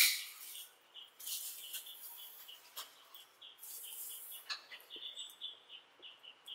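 Close-up chewing of a mouthful of soft donut: wet mouth sounds in three bursts with a few sharp clicks. Faint short high chirps repeat several times a second underneath.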